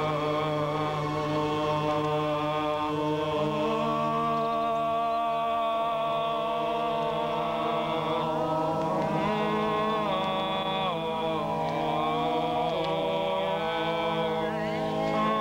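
A group of voices chanting together in long held notes, several pitches at once, the notes shifting now and then and sliding in the second half: ritual chanting by a circle of participants.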